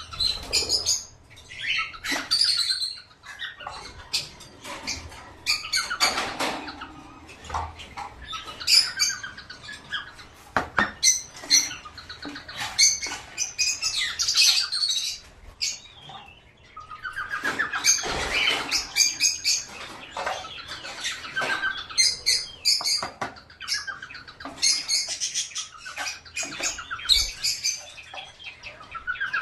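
Several small caged pet birds chirping and squawking busily and without pause, with quick rattling call trains, wing flutters and small clicks against the cage.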